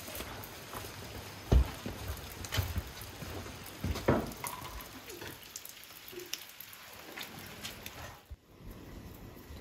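Steady light rain with scattered drops dripping from a corrugated porch roof. Two dull thumps stand out, about a second and a half in and again about four seconds in.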